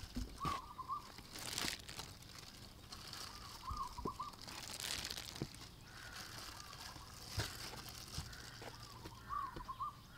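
Hands tossing chicken pieces through loose flour on a baking tray, with soft rustles and light pats. A chicken clucks three times: short wavering calls about half a second in, near four seconds and near the end.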